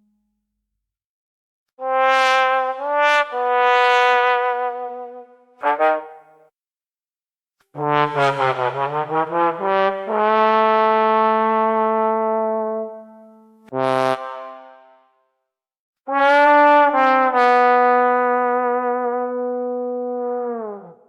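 Trombone playing the 'sad trombone' wah-wah-wah-waaah several times: short notes stepping down in pitch and ending on a long held note. One take opens with a fast wavering wobble, and the last ends by sliding downward.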